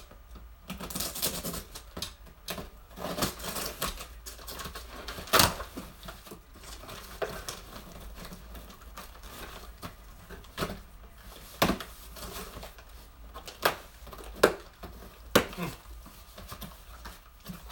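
Scissors cutting packing tape on a cardboard shipping box, with tape tearing, cardboard crinkling and a string of sharp snaps and clicks, the loudest about five seconds in.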